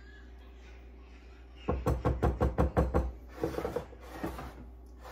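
A quick run of about eight sharp knocks over a second and a half, then a few softer ones, from a spatula and ceramic baking dish knocking while whipped topping is spread in the dish.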